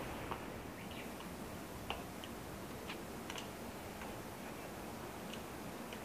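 Faint steady background hiss with scattered short, high-pitched ticks at irregular intervals.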